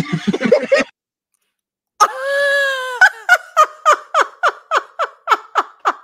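A woman bursting into laughter: a high squeal held for about a second, then a quick run of about a dozen short 'ha' pulses, about four a second, each falling in pitch.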